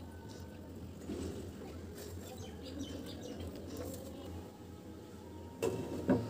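Glass pan lid set down onto a frying pan, clinking twice near the end with a short ring after.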